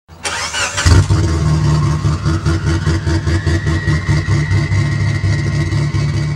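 An engine starting up with a short burst of noise, then running steadily at idle with an even pulsing beat.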